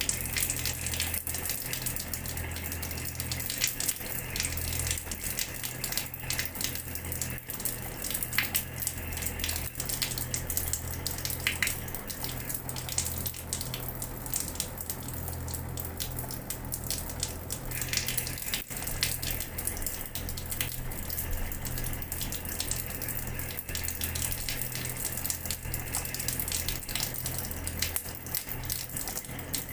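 Water running from a tap and splashing onto a hard floor: a steady hiss of falling water with constant small spatters, over a low steady hum.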